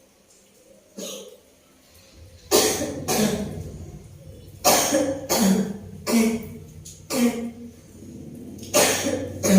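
A woman coughing repeatedly, about nine sharp coughs in singles and pairs. It is a lingering, persistent cough.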